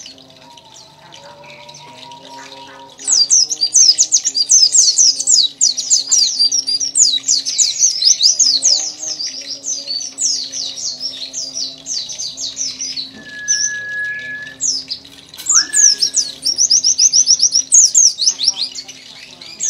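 Caged white-eye (pleci dakun) in full, persistent song: loud, fast runs of short, high notes, each sliding downward, starting about three seconds in and going on in long unbroken streams, with a short break near the end.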